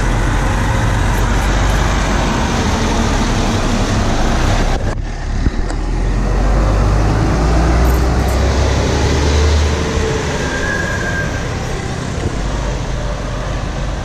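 Steady street traffic noise with a low rumble, from a coach bus driving past close by and other road traffic. The sound drops briefly and sharply about five seconds in.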